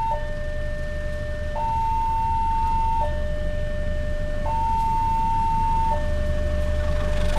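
Railway level-crossing warning alarm sounding a two-tone signal: a lower and a higher electronic tone alternate, each held about a second and a half, warning that a train is approaching. A steady low rumble lies underneath.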